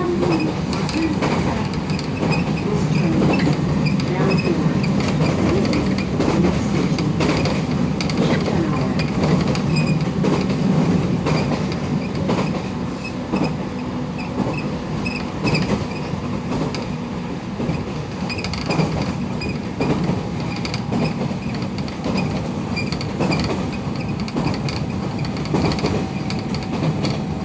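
Train running noise heard at the car end of a JR Kyushu 813 series electric multiple unit, with short, high squeaks recurring every second or two. The squeaking is an abnormal noise from the car end that eases on straight track.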